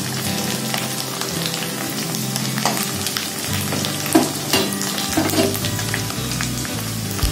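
Small dried anchovies (teri) sizzling as they fry in hot oil in a wok. A metal spatula stirs them and scrapes the pan, with a few sharper scrapes about four to five seconds in.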